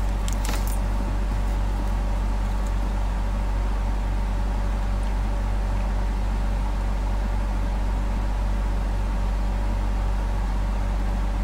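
Steady low electrical hum over a background hiss, with a few light clicks right at the start as a reel of solder is picked up and handled.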